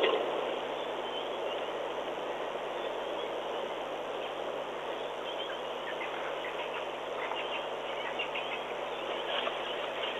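Steady hiss of outdoor bush ambience, with faint scattered chirps that come more often in the second half.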